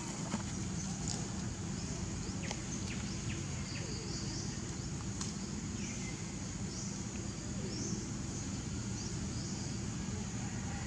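Outdoor ambience: a steady high-pitched insect drone with short bird chirps repeating every second or so, a few faint clicks, and a low background rumble.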